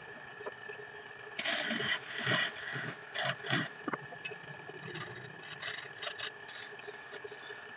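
Belt-driven wood lathe running with a steady whine, overlaid by irregular scraping and clattering of tools or sandpaper against the turning wood and the lathe, loudest between about one and a half and four seconds in.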